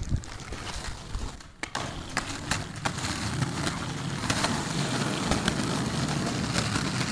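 Skateboard rolling on asphalt, its wheels making a steady low rumble, with repeated sharp clacks from the board.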